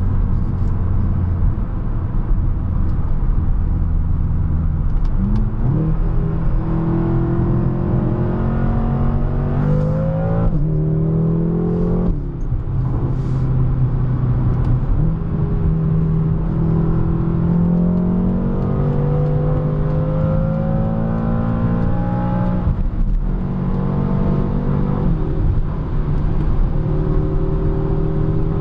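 BMW M6's twin-turbo V8 heard from inside the cabin under hard acceleration: a steady drone, then from about five seconds in the engine note climbs through the gears, dropping back at upshifts about ten, twelve and twenty-three seconds in, over steady tyre and wind noise.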